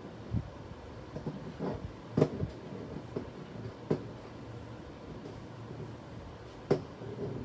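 Handling noises from a cloth napkin and a clear plastic napkin holder being worked on a table: a few separate light knocks and taps over a low rumble, the loudest about two seconds in and near the end.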